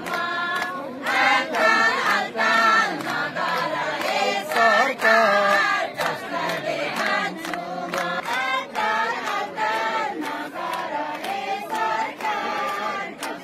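A crowd of women singing together with rhythmic handclapping.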